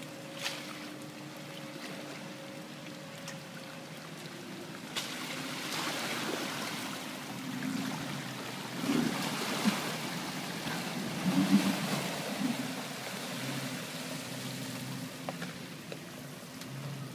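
Jeep Wrangler fording a creek at low speed: the engine runs steadily while the tyres push and splash through flowing water. The splashing grows louder about five seconds in and surges loudest twice near the middle.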